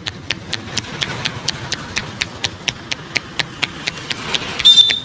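Rhythmic hand tapping of a barber's head massage, sharp pats at about four a second. Near the end comes a brief, loud, high-pitched squeak.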